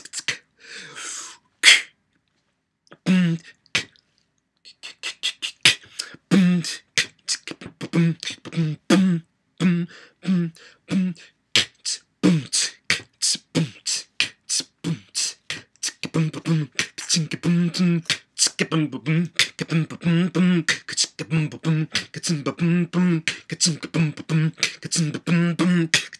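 Solo beatboxing: a man's mouth percussion of sharp clicks and snare-like bursts in a fast, steady rhythm, after a couple of short pauses near the start. From about sixteen seconds in, a low voiced bass tone sounds on nearly every beat.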